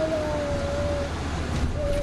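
Road vehicle running along at speed, heard from inside, as a steady low rumble of engine and road noise. Two held tones sound over it, each sinking slightly in pitch: the first lasts about a second, and a shorter one comes near the end.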